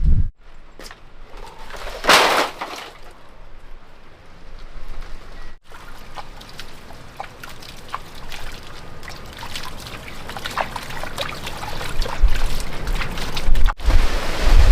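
Water trickling and splashing, with a brief louder rush about two seconds in.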